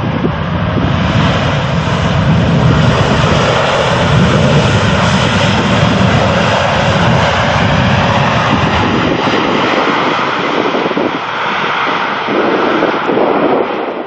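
A jet airliner coming in to land close by, its engines making a loud, steady rushing rumble that cuts off suddenly near the end.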